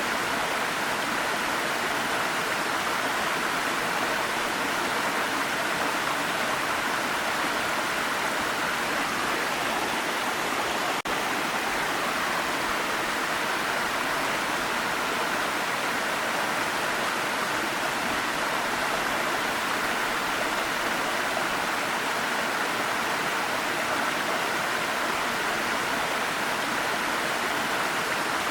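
Waterfall rushing: a steady, even roar of falling water, with a brief dropout about eleven seconds in.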